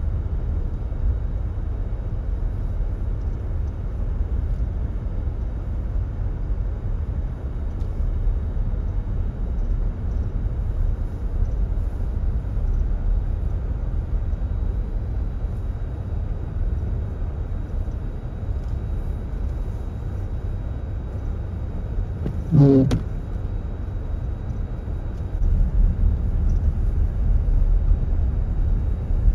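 Steady low rumble of a vehicle's engine and tyres driving on a snow-covered highway, heard from inside the cabin. A brief pitched sound cuts in about three quarters of the way through, and the rumble grows louder near the end.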